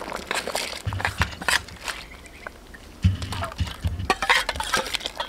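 Mung beans tipped from a metal bowl splash into a large aluminium pot of boiling liquid. Irregular clinks and knocks of the bowl against the pot come with a few dull thuds.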